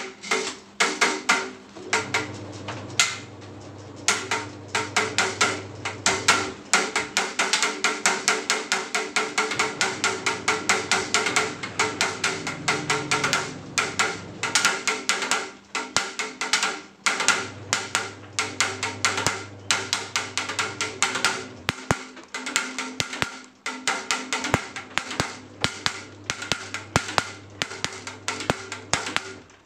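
A group of spinning propeller fans making a fast, irregular clacking, many knocks a second overlapping each other, with a low hum that comes and goes.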